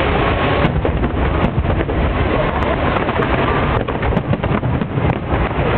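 Steady wind rumble on the microphone over a crowd's chatter, without distinct firework bangs.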